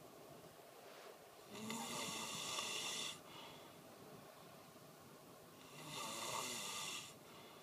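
Snoring: two long snores, about four seconds apart, each lasting a second or more.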